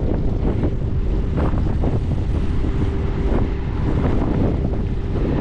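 Strong wind buffeting the microphone: a loud, steady low rumble with gusty surges. A faint steady hum runs underneath for most of it.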